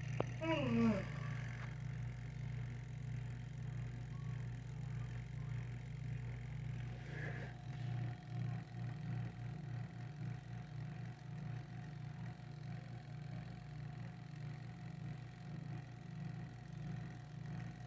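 Washing-machine wash motor running on mains with a steady low hum, which starts to waver and pulse about halfway through. A short falling whistle comes about half a second in.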